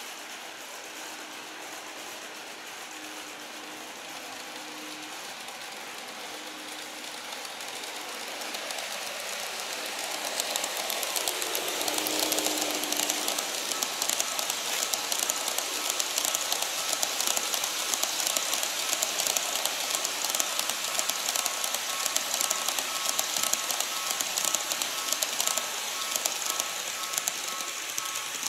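Model train running on the track: a dense, rapid clatter of wheels over the rail joints. It builds from about eight seconds in as the blue 14-series passenger cars come past, and stays loud, with a faint steady motor whine.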